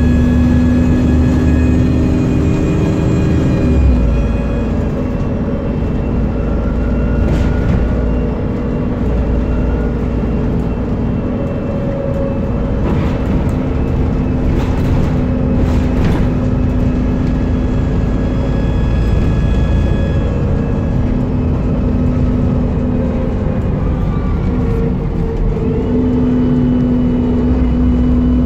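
Dennis Trident double-decker bus on the move, heard from inside the passenger saloon: the engine and transmission run with a steady whine over a low rumble. The pitch shifts about four seconds in and again near the end, and a few short knocks or rattles come in the middle.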